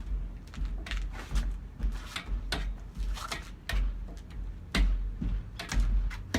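Irregular sharp slaps and knocks, about two to four a second, with low thuds beneath, from hands and arms striking and parrying while a martial-arts hand set is practised.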